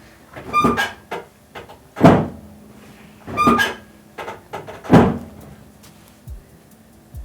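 Music with a slow, regular beat of sharp percussive hits, some with ringing pitched notes.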